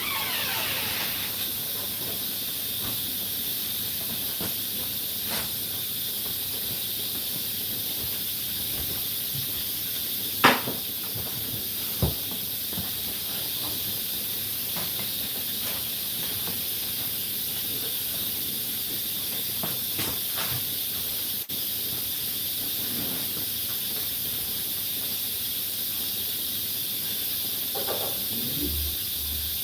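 Whirlpool WFO3P33DLXUK dishwasher in its 65 °C full wash, water spraying inside with a steady hiss. There is a sharp knock about ten seconds in and another about two seconds later.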